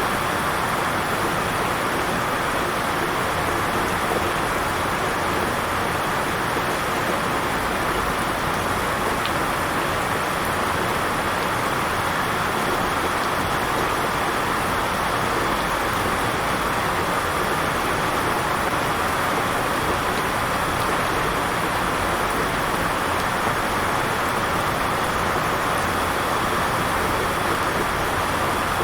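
Heavy rain falling steadily in an intense downpour, an even, unbroken hiss of rain.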